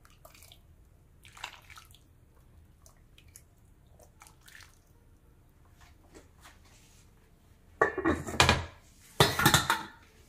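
A metal ladle clinks faintly against a stainless steel pot and soup drips as it is served. Near the end come two louder clatters as the ceramic bowl is set down on the cooktop.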